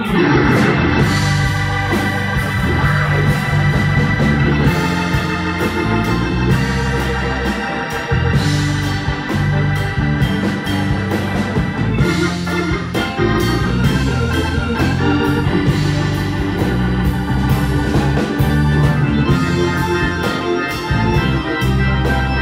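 Live band playing. A Hammond organ carries the lead with sustained chords over electric bass, guitar and drums.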